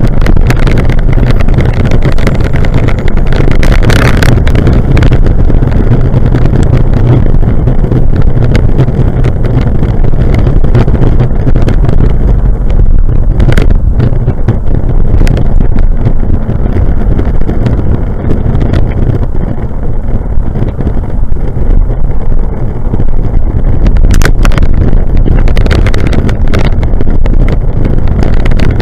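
Heavy wind buffeting and road rumble on a handlebar-mounted action camera's microphone while cycling, with a few sharp knocks from bumps in the road.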